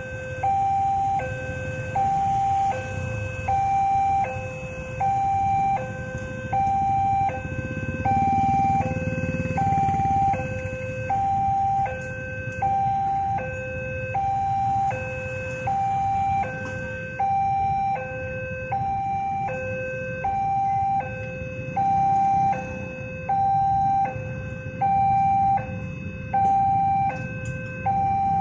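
Electronic railroad crossing warning alarm sounding a two-tone pattern that repeats about every two seconds, signalling an approaching train while the barrier is down. Motorbike engines idle underneath.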